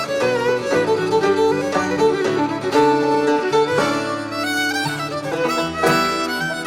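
Instrumental background music led by a fiddle playing a melody, with guitar accompaniment.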